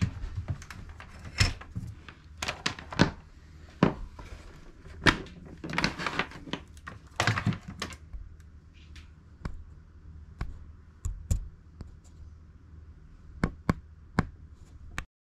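Old National Panasonic 14-transistor radio's speaker popping and crackling irregularly over a steady low hum, with no station coming through.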